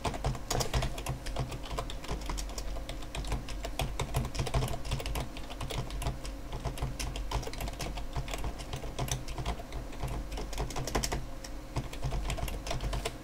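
Computer keyboard typing: a continuous, uneven run of quick keystroke clicks as a sentence is typed out.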